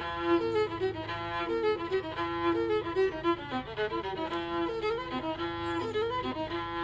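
Outro music: a fiddle tune, note following note over a steady low accompaniment.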